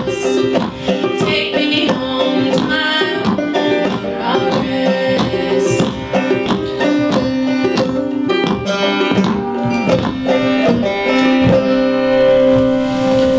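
Acoustic string band of banjo, mandolin, acoustic guitar and upright bass playing together, a fast run of plucked notes over steady chords.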